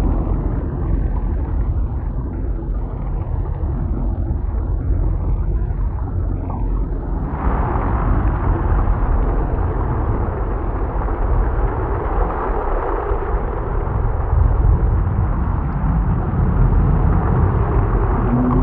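Simulated thunderstorm: a continuous deep thunder rumble under a rushing hiss, which suddenly grows brighter and louder about seven seconds in and stays that way.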